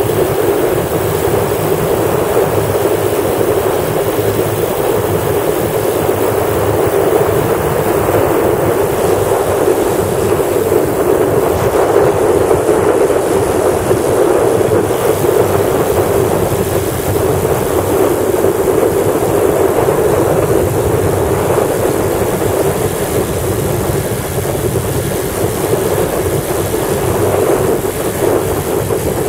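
Lazair ultralight's twin engines running steadily in flight, heard from the open cockpit with wind rushing over the microphone.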